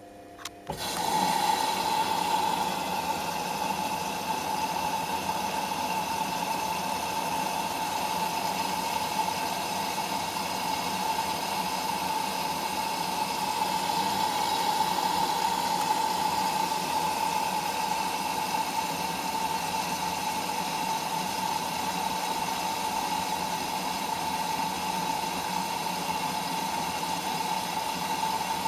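Whirlpool washing machine's water inlet starting to fill the drum at the start of a cotton 60°C wash: a steady rush of incoming water that begins abruptly about a second in.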